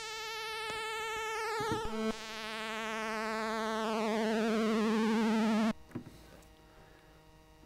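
Commodore 64 SID (MOS 6581) synthesiser voice played from a keyboard: a held buzzy note with vibrato, then a note an octave lower whose bright overtones sweep steadily downward as it grows louder. It cuts off suddenly about six seconds in, leaving a faint hum.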